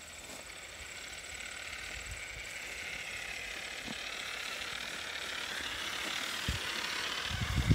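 Traxxas TRX-4 RC crawler driving through tall grass: its Hobbywing AXE R3 4274 brushless motor and geared drivetrain whine steadily, growing louder as it approaches, with grass brushing against the truck. A few low thumps near the end.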